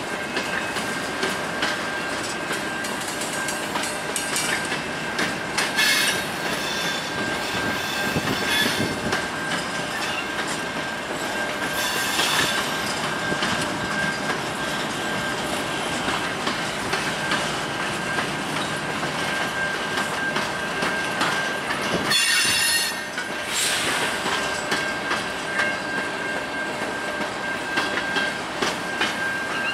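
Covered hopper grain cars of a long freight train rolling past: a steady rumble of steel wheels on the rail under a thin, steady high wheel squeal. A few brief louder screeches break in, the longest about 23 seconds in.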